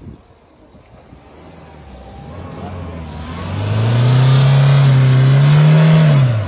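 Mahindra Thar 4x4's engine revving hard as the vehicle struggles out of deep, boggy mud: the engine note builds from about two seconds in, holds high and loud, climbs a little, then drops away sharply near the end.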